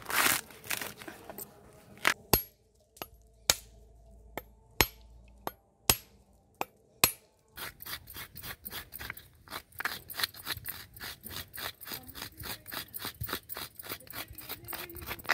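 Fresh coconut flesh being scraped out of a half shell by hand, in rapid, even strokes about five a second. Before that come several sharp, separate knocks about a second apart.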